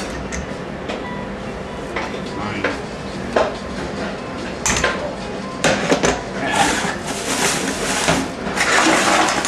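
Adjustable wrench clicking and clinking against a steel puller bolt as it is worked into the centre threads of a snowmobile primary clutch, the threads a little tight. Scattered single metallic knocks give way to a denser stretch of scraping and rattling about two-thirds of the way in.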